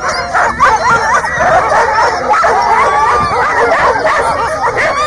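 Many harnessed sled dogs barking, yipping and howling all at once, a continuous excited din of overlapping calls sliding up and down in pitch, the clamour of teams hitched and waiting to run.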